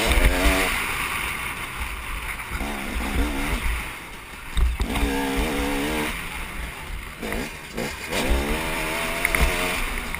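Motocross bike engine revving hard and backing off several times, its pitch climbing and then dropping as the rider accelerates and shuts off, with wind buffeting the microphone.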